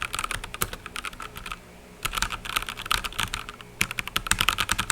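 Fast typing on a MageGee MK1 TKL mechanical keyboard with linear red switches: rapid runs of key clacks in three bursts with short pauses between.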